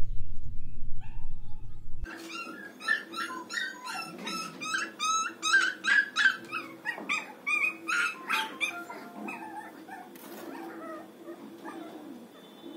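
A loud low rumble at first, then a puppy whimpering and yelping in a rapid run of short, high-pitched cries, about two a second, which thin out in the last few seconds.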